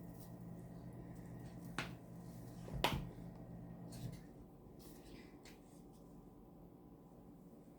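Seasoning containers being handled: two sharp clicks about a second apart, the second louder, then a few fainter ticks. Under them runs a low steady hum that stops about four seconds in.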